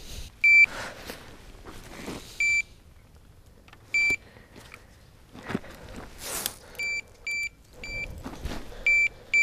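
Electronic carp bite alarm giving short single high-pitched bleeps, about eight in all at uneven intervals, as line is drawn over it while the freshly cast rod is set up. Faint handling noise comes between the bleeps.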